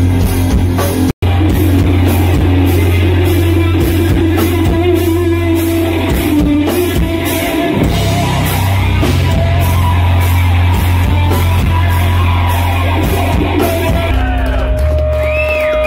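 Loud distorted electric guitar drone and feedback, run through effects pedals: a sustained low rumble with held, pulsing tones and a brief dropout about a second in. Near the end, wavering high tones glide up and down from the pedals.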